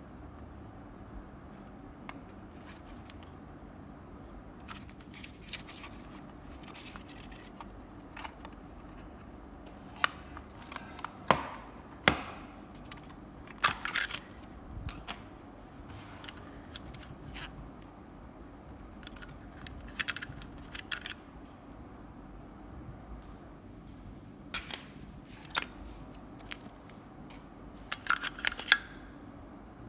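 Irregular sharp clicks, some in quick pairs, with a few short scraping or rustling sounds, loudest in a cluster around the middle and again near the end, from a wireless computer mouse being clicked and handled.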